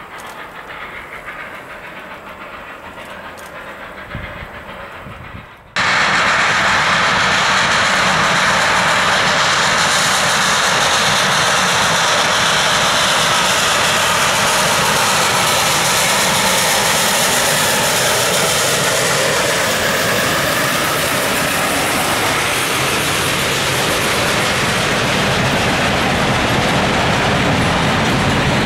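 Baldwin 2-8-0 Consolidation steam locomotive No. 734 running, fainter at first, then very loud after a sudden jump about six seconds in as it passes close by. Its string of freight cars then rolls past with a steady rattle and clickety-clack.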